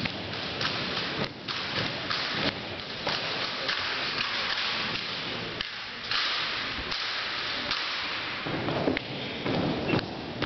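Armed drill team marching and working rifles on a hardwood gym floor: a string of thuds and sharp slaps from boots and rifles, over a hiss of hall noise.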